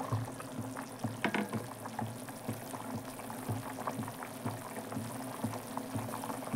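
Thin gravy boiling hard around whole eggs in a pan, bubbling steadily with many small pops.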